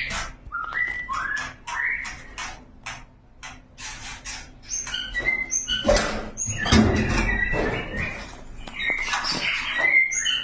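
A male murai songbird calling to a female, a courtship call. It gives a run of short rising whistled notes and clicks, then louder, harsher calls partway through.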